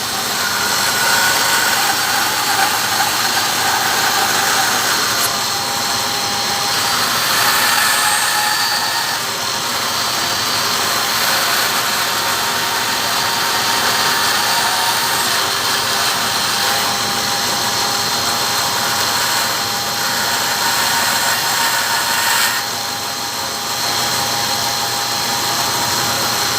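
Power tool running steadily while cutting wood: a loud continuous motor whine over a hiss, with a brief drop in level a little past twenty seconds in.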